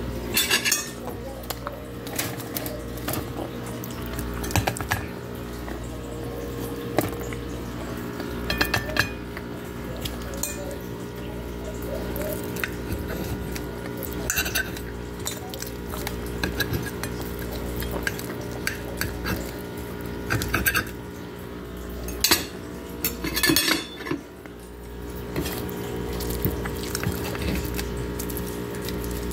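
Metal fork cutting through pizza and clinking and scraping against a plate, with sharp clinks every few seconds and a cluster near the end. A steady low hum runs underneath.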